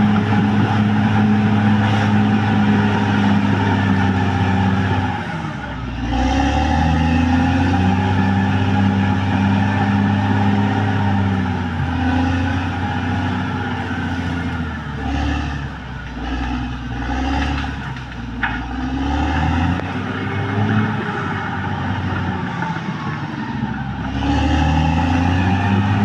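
Caterpillar D6R XL bulldozer's diesel engine running hard. Its steady note drops and recovers about five seconds in, dips and surges unevenly through the middle, and comes back to a steady higher pitch near the end.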